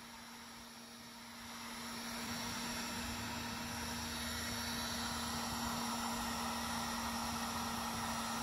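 Heat gun running steadily, a rushing hiss of hot air over a constant motor hum, growing louder over the first two seconds as it melts an HDPE plastic strip onto a kayak hull patch.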